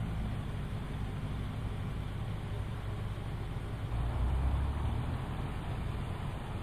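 Fire engine's diesel engine idling with a steady low hum, louder and deeper for about a second around four seconds in.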